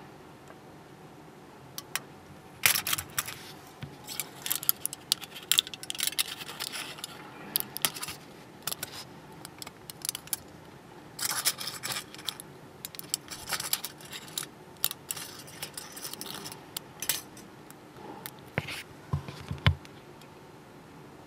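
Aluminium foil crinkling and crackling in the fingers in irregular spells, with sharp clicks of small side cutters snipping through the foil.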